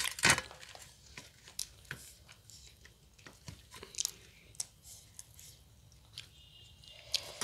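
Close-miked eating: chewing, crunching and small mouth clicks of people eating fried puri with their hands from steel plates. A loud sharp knock comes right at the start, and fingers scrape and lightly ring a steel plate near the end.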